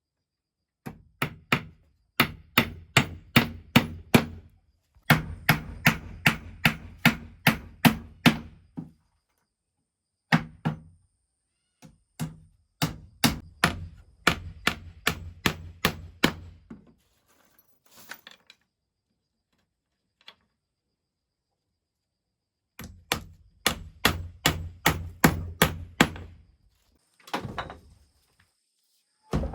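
Wood being struck hard and repeatedly with a tool, in several runs of quick blows about three to four a second with short pauses between, and a few single knocks.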